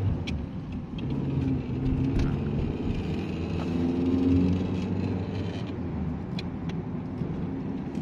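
Steady engine and road rumble heard inside a moving car's cabin, with a few scattered light ticks.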